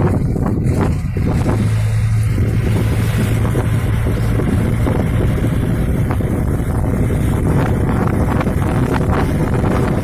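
Wind buffeting the microphone from a moving vehicle, over the steady rumble of the vehicle and its road noise.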